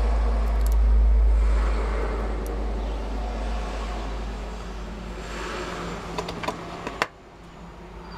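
A steady low rumble that slowly fades and cuts off suddenly about seven seconds in. Just before it stops come a few light metallic clicks of a small screwdriver working on a starter motor's end cover.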